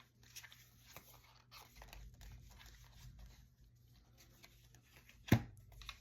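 Tarot cards being shuffled and handled, with light papery rustles, then one sharp tap about five seconds in.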